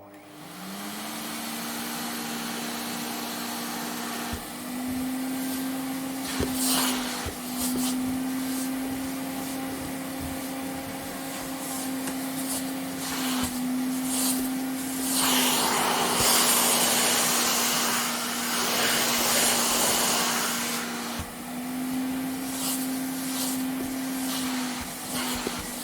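Vacuum cleaner switched on, its motor spinning up to a steady hum within the first second. The pitch of the hum steps up and back down several times. A loud rush of air sweeps over it from about 15 to 21 seconds in.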